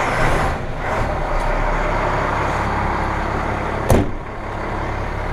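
Fire engine's diesel engine running steadily in the cab, a dense low rumble, while the air brake system comes up to pressure. One sharp knock about four seconds in.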